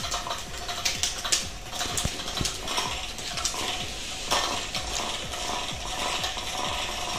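Electric butterfly cat toy running: its small motor whirs steadily under quick ratcheting clicks and rattles, with sharper irregular knocks as a cat paws at the spinning feathered butterfly.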